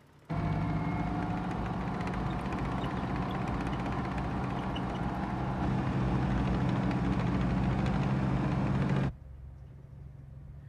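Engines of a column of M4 Sherman tanks running steadily, a deep rumble from the film's soundtrack. It starts abruptly just after the start and cuts off sharply about nine seconds in, leaving only a faint low hum.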